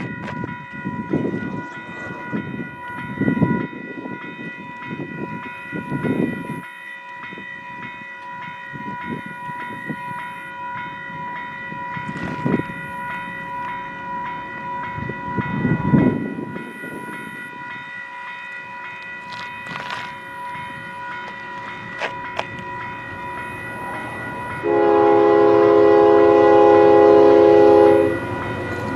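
Union Pacific freight locomotive's air horn sounding one long blast near the end, a loud chord of several notes, as the train approaches the crossing. Before it, wind gusts on the microphone over a steady high-pitched whine.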